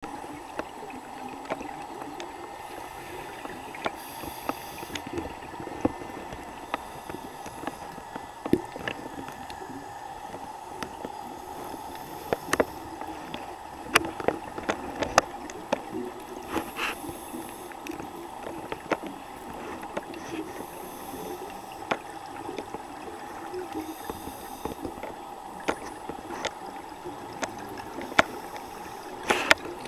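Underwater scuba recording: a steady hum with many sharp clicks and ticks scattered throughout, and a high hiss every few seconds, typical of a diver's regulator breaths and exhaled bubbles.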